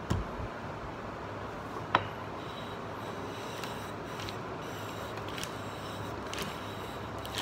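A knock as a whetstone is set onto its holder, and a sharp click about two seconds in. Then a steady scraping as a wooden block is slid back and forth across the whetstone.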